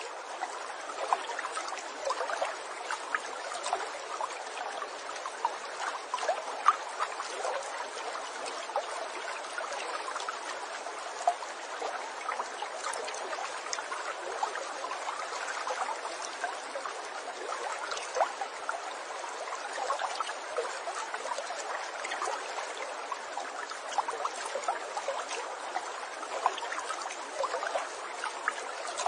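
Running water trickling and babbling steadily, like a small stream, with many small splashing ticks.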